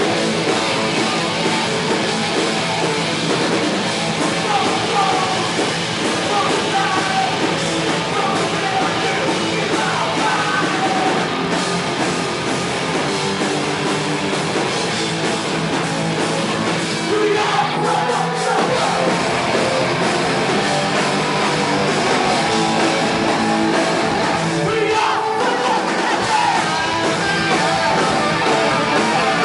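Live heavy rock band performing: distorted electric guitars and drums played loud and continuously, with yelled vocals, recorded from the audience.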